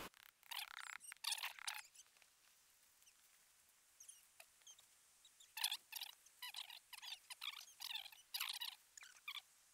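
Faint rustling and crinkling of lightweight nylon tent fabric being handled and pulled taut as a single-wall trekking-pole tent is pitched, in short scattered bursts: a few near the start, then a busy run from about the middle on.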